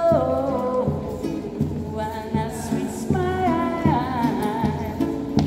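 A man singing along to his strummed acoustic guitar, holding long notes that waver in pitch over steady chords.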